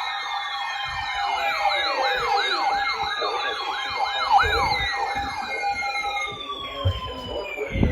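Several electronic sirens sounding at once: a fast up-and-down yelp over slower falling wails and a steady tone. The yelp stops about five seconds in and the wails fall away near the end, where there is a single low thump.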